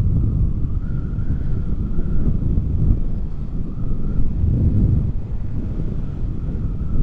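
Wind buffeting the microphone of a rider on a moving Yamaha NMAX scooter, a rough rushing noise that rises and falls, with a faint thin whine from the scooter wavering slightly in pitch underneath.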